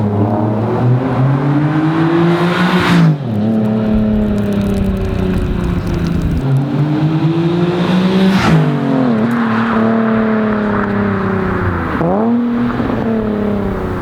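A Nissan 370Z's 3.7-litre V6 with a Megan Racing 2.5-inch cat-back exhaust, accelerating hard through the gears. The engine note climbs and drops sharply at each gear change, about 3 and 8.5 seconds in, then holds steady before another sharp dip near the end.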